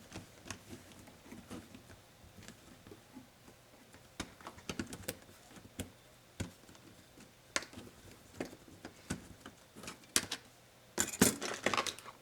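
Laptop parts being handled and taken apart by hand: irregular small clicks and taps of plastic and metal pieces, with a louder clatter of several clicks near the end.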